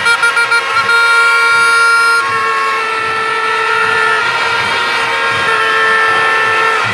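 Fans' handheld horns blaring in a stadium crowd: several long held tones overlap, with a quick run of about five short toots in the first second, over the noise of the crowd.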